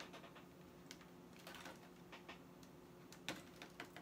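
Faint clicks and crinkles of a clear plastic blister pack being handled and pried at, a few sharper clicks scattered through, the loudest about three seconds in, over a faint steady hum.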